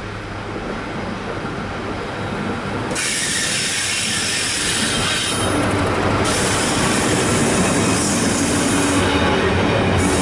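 A Class 70 diesel locomotive approaches and passes close by, growing steadily louder; about three seconds in its sound swells sharply. A train of loaded box wagons then rolls past on the rails.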